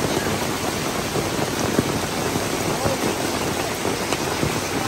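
Small hail pelting a pop-up canopy roof and the pavement around it: a dense, steady patter sprinkled with sharper ticks.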